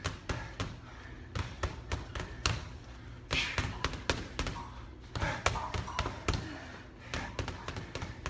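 Boxing gloves thudding into hanging heavy bags: two people throwing quick runs of straight punches, the hits coming unevenly and often several in a row.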